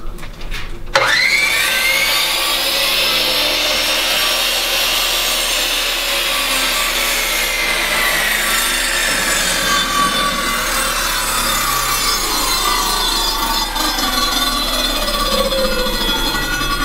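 Power tool running, with a rasping sawing noise. It starts abruptly about a second in, and its whine jumps up in pitch, then sinks slowly.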